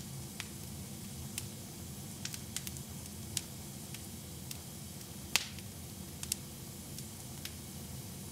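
Wood fire crackling in a fireplace: irregular sharp pops and snaps, one louder pop a little past the middle, over a low steady rumble.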